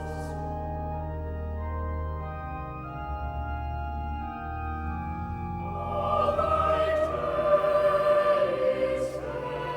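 Organ music holding steady chords, with voices singing over it from about six seconds in.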